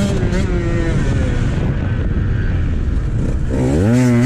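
Dirt bike engine running. It drops to a low, rough note about half a second in, then revs up with a rising pitch near the end.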